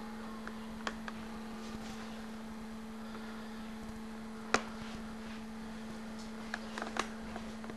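Steady electrical hum with a few sharp clicks: one about a second in, a louder one about halfway, and a couple more near the end.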